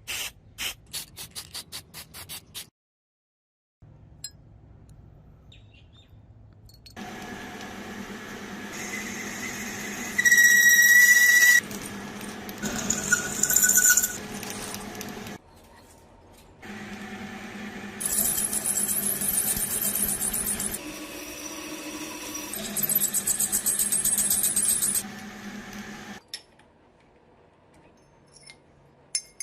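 Small power tool grinding steel in two long bursts, a motor hum under a high squeal, after a run of clicks at the start.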